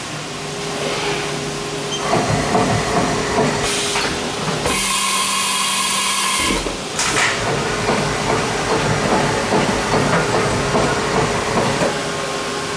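Haas VF-2SS vertical machining center running with a steady machine tone. About five seconds in comes a loud compressed-air hiss lasting about two seconds, then a short second hiss, as the side-mount tool changer swaps a tool, before the steady tone returns.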